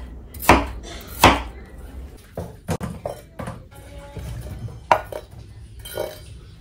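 A kitchen knife cutting watermelon into cubes on a wooden cutting board: the blade knocks sharply against the board several times, with softer scrapes as the cubes are slid off the board.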